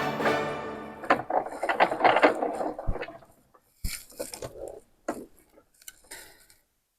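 Background music fading out over the first second, then paper-crafting handling noise: cardstock scraping and rustling for about two seconds, followed by a few scattered light taps and clicks on the work surface.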